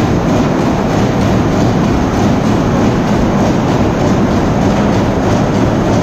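Large horizontal stationary steam engine with a big flywheel running steadily, giving a loud, continuous mechanical din.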